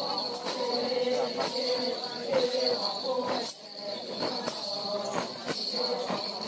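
Group of women chanting in unison over a steady rattling beat that falls about twice a second, keeping time for a procession dance.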